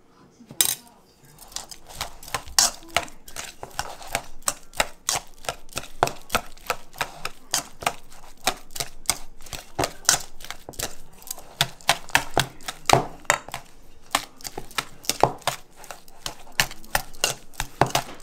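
Boiled potatoes being mashed with a wire whisk in a perforated stainless steel bowl: the whisk's wires clack and scrape against the metal in quick, uneven strikes, several a second, starting about half a second in.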